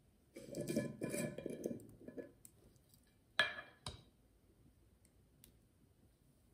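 Sugar poured from a canister into a glass mixing bowl of flour: a grainy rustling pour lasting about two seconds, then two sharp knocks half a second apart.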